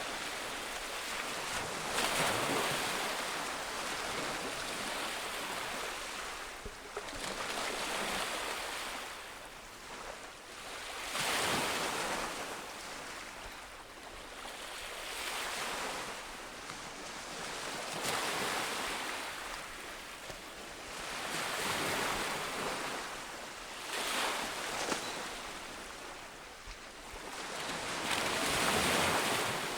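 Ocean waves breaking on a beach, surf swelling and washing back in repeated surges every few seconds, with some wind.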